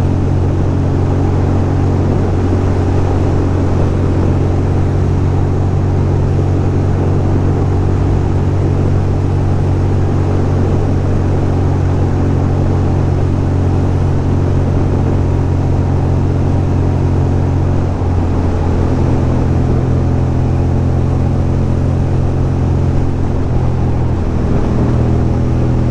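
2006 Ducati Monster 620's air-cooled L-twin engine running steadily at cruising speed, with wind rush over the microphone. The engine pitch shifts slightly about eighteen seconds in and again near the end.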